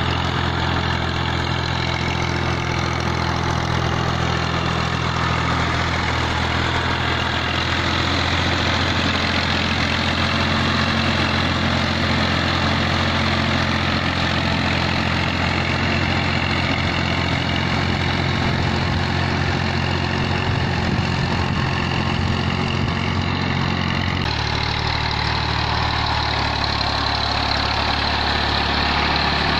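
Massey Ferguson 240 tractor's three-cylinder diesel engine running steadily under load while it drags a plank leveller through a flooded rice field. Its tone shifts abruptly near the end.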